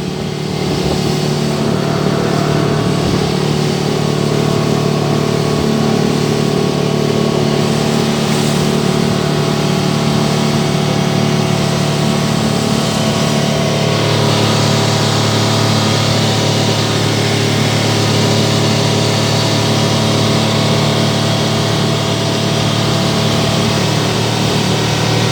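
An engine running steadily, with a change in its pitch about halfway through.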